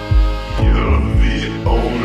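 Electronic dance music from a DJ mix: a steady kick drum and bass about two beats a second under held synth chords, with a busier, brighter layer coming in about half a second in.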